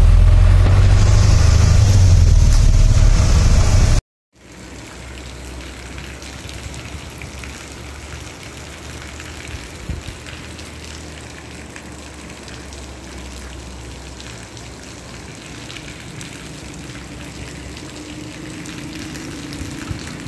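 Rain on a car's windshield over a loud low rumble from the car in the cabin. After about four seconds this cuts off and gives way to the quieter, steady hiss of heavy rain falling on tiled roofs and a wet street.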